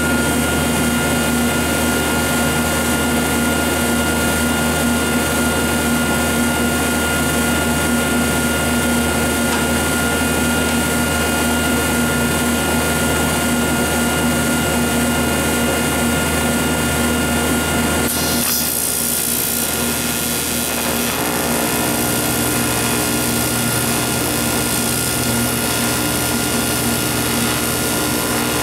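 A steady hum with a few pitched tones. About eighteen seconds in, a TIG welding arc strikes on aluminum and runs with a steady hiss.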